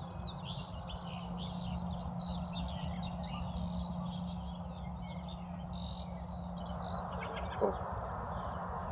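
A flock of small birds chirping and calling in a dense, overlapping chorus that thins out after about six seconds. A brief louder sound comes near the end.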